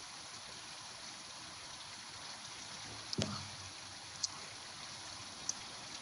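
A person sipping beer, with steady background hiss throughout. About three seconds in there is a click and a short falling 'ah'-like vocal sound, as after a swallow, and a couple of faint ticks follow.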